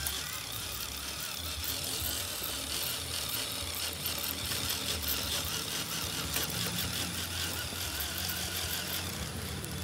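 Electric motor and gearbox of a radio-controlled scale crawler truck whining steadily as it climbs a slope, cutting out near the end.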